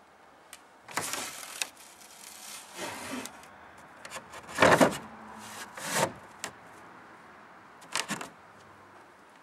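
A loose paper-lined wooden shelf inside a solid oak dresser cupboard being handled, wood scraping and knocking against wood several times, loudest about halfway through.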